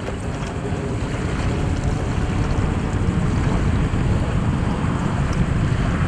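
Steady wind rumble on the microphone, with small waves lapping around the board in the shallows.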